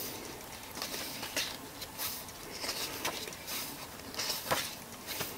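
Pages of a small paper booklet being turned one after another by hand: a string of brief, irregular paper rustles and flicks.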